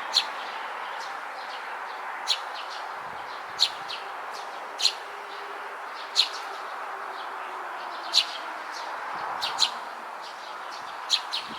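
Juvenile Eurasian tree sparrow giving short, sharp chirps, one every second or two, over a steady background hiss.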